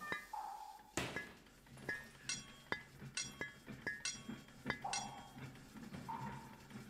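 Metal striking metal: a heavier knock about a second in, then a run of ringing clinks and clanks about two a second, over a low steady hum. These are the work sounds of a coal-mine pithead.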